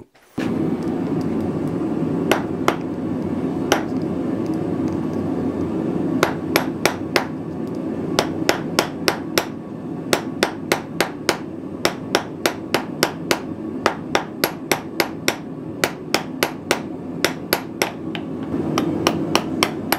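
Small hammer striking a thin hot steel rod on a small hand-forged, hardened steel Viking-style anvil. It starts with a few single blows, then comes in quick runs of sharp metallic strikes, about three a second, with short pauses, over a steady background rush.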